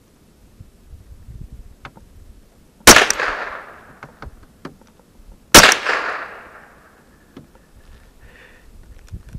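Two gunshots about two and a half seconds apart, each echoing and fading over about a second.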